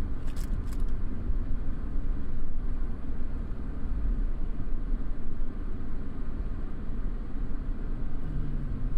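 Steady low rumble of a small vehicle on the move, engine and road noise, with a few light clicks just after the start.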